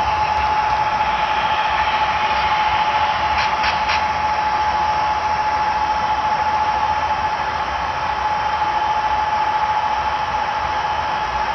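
HO scale model train running along the track with the camera riding on it: a steady whirring noise with a constant high whine and a low rumble, and a few quick ticks about three and a half seconds in.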